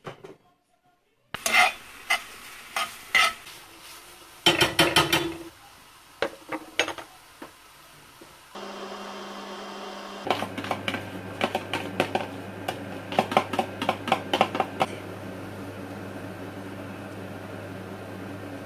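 Pots, dishes and cutlery clattering and clinking as they are handled, loudest about a quarter of the way in. About halfway through, a steady low machine hum starts and runs on under further clinks.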